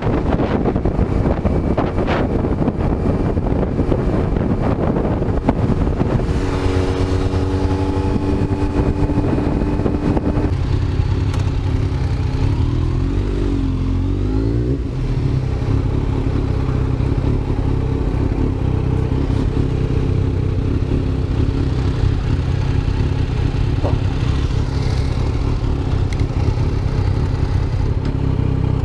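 Motorcycle ride: the Kawasaki Z900's inline-four engine runs continuously at road speed under a rush of noise. Its engine note shifts pitch about six and ten seconds in, then dips and climbs back between about twelve and fifteen seconds as the revs change.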